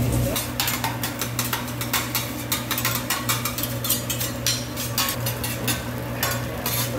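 Metal spatulas clacking and scraping on a steel teppanyaki griddle as fried rice is chopped and turned, in quick irregular strikes several times a second, over a steady low hum.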